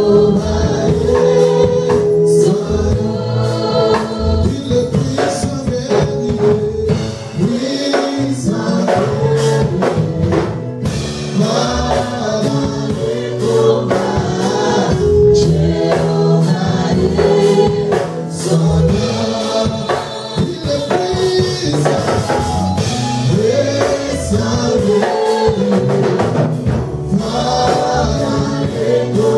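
Gospel worship song performed live: a male lead singer and a mixed choir sing over a band with drums.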